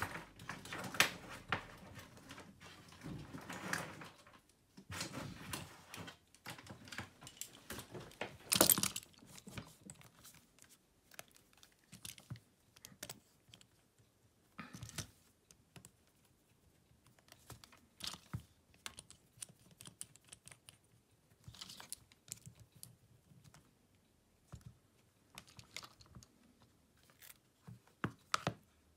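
Irregular light clicks and taps of a smartphone and small parts being handled during a screen repair, with one sharper knock about nine seconds in.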